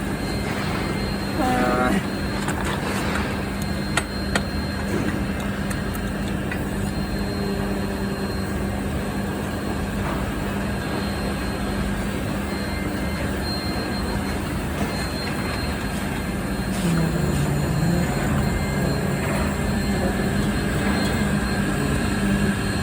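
Heavy factory machinery running with a steady hum and a dense noise bed. Two sharp metal knocks come about four seconds in, and the machinery grows louder near the end.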